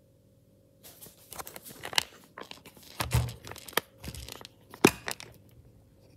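Handling noise from a phone being picked up and carried: rustling and scraping against the microphone, broken by sharp clicks and knocks, with a low thump about three seconds in. It starts about a second in after near silence.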